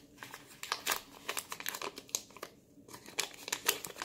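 Brown paper wrapping crinkling and rustling as it is unwrapped by hand, in irregular crackles with a brief lull about two and a half seconds in.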